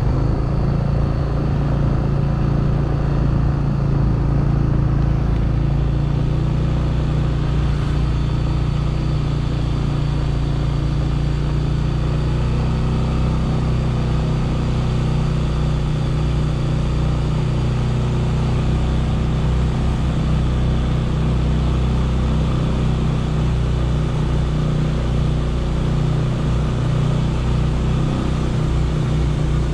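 A motor vehicle's engine running steadily at low revs, with a slight change in its note about twelve seconds in.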